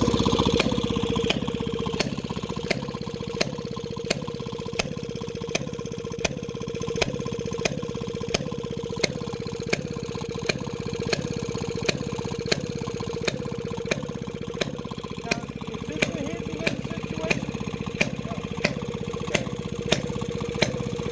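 Antique Maytag washing-machine engine, a small single-cylinder two-stroke, running steadily, with a sharp, evenly spaced crack about three times every two seconds over its continuous running.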